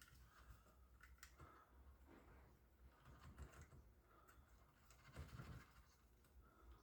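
Near silence, with a few faint small clicks and taps as small tachograph parts are handled.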